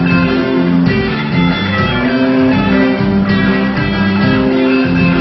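Live rock band playing: electric guitars, bass and a drum kit, with sustained chords over a steady beat.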